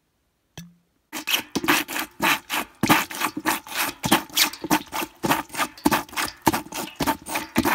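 Rubber sink plunger pumped in a bucket of muddy water: quick wet squelching and sucking strokes, about three or four a second, starting about a second in after a single short click.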